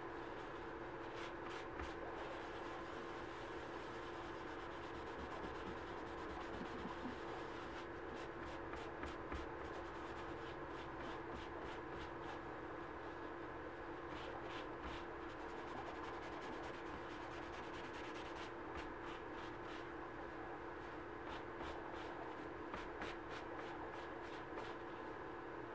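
A dye-soaked cloth rubbed back and forth over a leather key chain on paper towels, making spells of quick scrubbing strokes, over a steady background hum.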